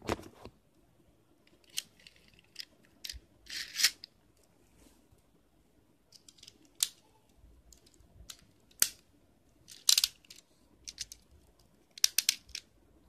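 A brief rasp at the very start as a Beyblade top is launched, then scattered short clicks and scrapes of small plastic toy parts being handled, with quiet gaps between them.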